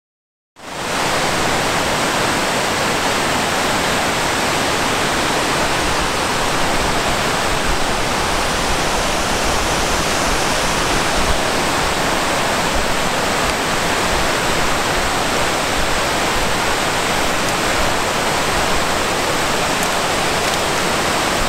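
Steady rushing of waterfalls and fast-flowing stream water, cutting in abruptly about half a second in.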